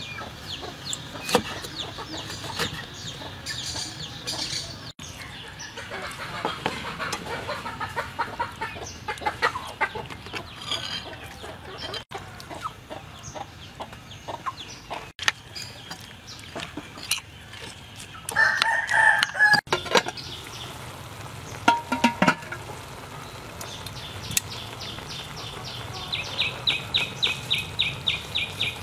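Chickens clucking and a rooster crowing in the background, over sharp clicks and taps of a knife on a wooden cutting board and a spoon in a bowl. Near the end, a fast, even pulsing call of about six beats a second starts up.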